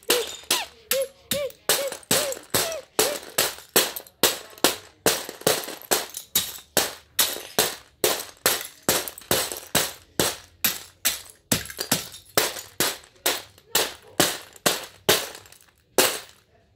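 Plastic Lego bricks being struck and clattered in a pile: a fast, even run of sharp smacks, about three a second, that stops shortly before the end.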